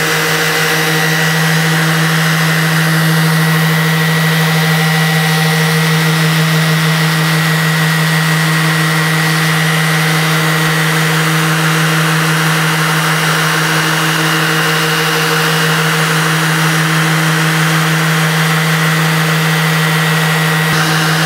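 Festool ETS random orbital sander with a Vlies pad running steadily, buffing paste wax into a plywood top, together with a dust extractor; one high whine drops out just before the end while the lower hum carries on.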